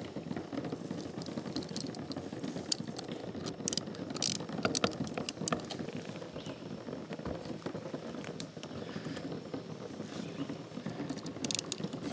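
Scattered clicks and knocks of plastic and rubber fittings being handled. Near the end, a socket ratchet starts clicking quickly as it tightens a hose clamp on a rubber coupling.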